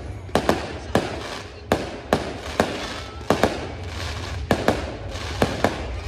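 Fireworks show: a rapid series of sharp bangs from aerial shells bursting, about two a second, some in close pairs, with a crackle between them.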